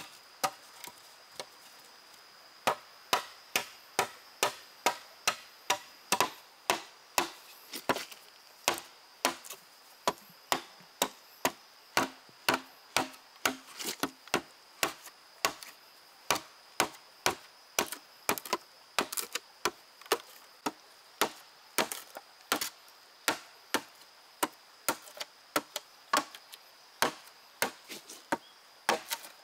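A blade chopping against wood in steady, even strokes, about two a second, with a faint steady high whine behind.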